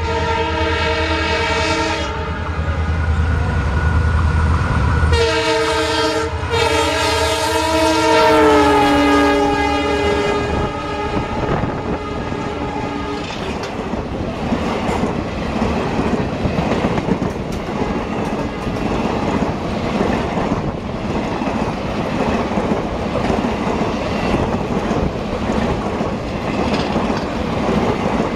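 A WDP4 (EMD GT46PAC) diesel locomotive honking its multi-tone horn as it approaches, its engine running heavily, then sounding a second long blast from about 5 s in whose pitch drops as it passes. After that, the train's coaches rattle by with a fast clickety-clack of wheels over the rail joints.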